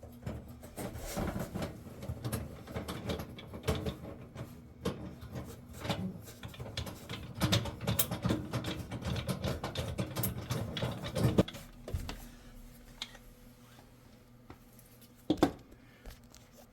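Oven igniter being screwed into place by hand: irregular small metallic clicks, scrapes and knocks of the screwdriver, screw and bracket for about eleven seconds, then quieter, with one sharp knock near the end.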